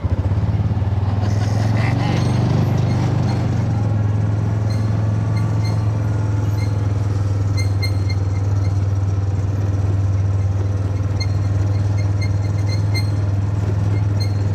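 Vehicle engine running at a steady speed, a deep unchanging drone, with light scattered ticks over it from about four seconds in.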